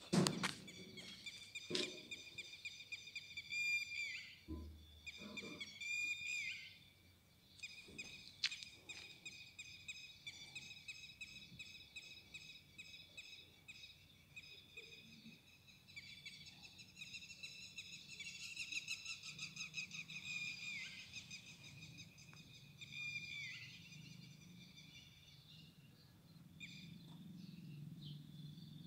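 Insects chirring in a rapid, high trill that keeps going with short breaks. A few sharp knocks come in the first eight or nine seconds, and a low hum comes in about two-thirds of the way through.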